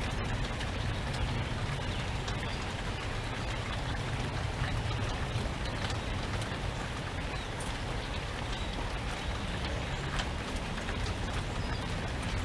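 Steady rain falling, with scattered sharp drop ticks over a low, even rumble.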